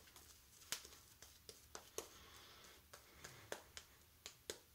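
Shaving brush working lather over the face: faint, irregular wet clicks and squishes of bristles and lather against skin, a few each second.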